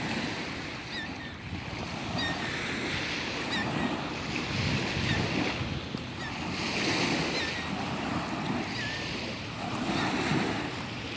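Waves washing in on a shore, the noise swelling and falling every couple of seconds, with wind on the microphone. A few faint, short high chirps come through on top.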